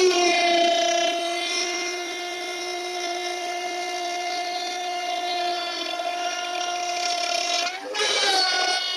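Electric trim router (NRT Pro) running at full speed, a steady high whine. Near the end the pitch dips briefly and a rougher noise comes in, then it steadies again.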